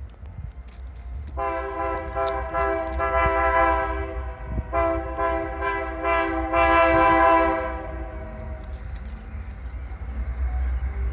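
Freight diesel locomotive's multi-chime air horn sounding two long blasts, the first about three seconds and the second about four, with a low rumble underneath.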